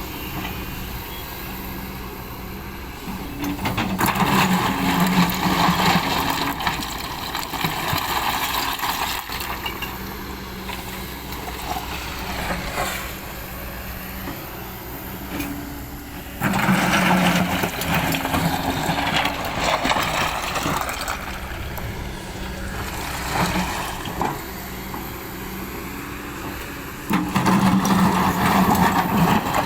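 Excavator's diesel engine running under hydraulic load, swelling louder three times, about every eleven seconds, as the machine works the arm, then settling back between the surges.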